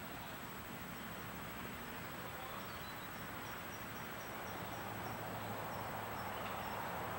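Rural outdoor background hiss with a run of faint, evenly spaced high chirps, about four a second, typical of a cricket or other insect. The background grows a little louder near the end.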